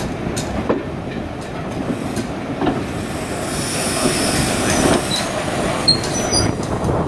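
Slow-moving train of a passenger coach and a small diesel shunting locomotive rolling past: the wheels rumble and click over the track. From about three seconds in there is a high wheel squeal on the rails.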